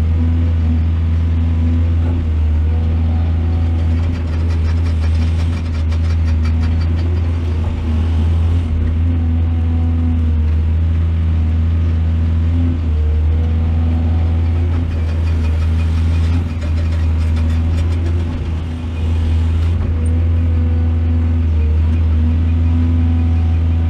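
Heavy diesel engine of an excavator running steadily under load with a deep, constant hum, and stretches of rattling about five seconds in and again around fifteen seconds in.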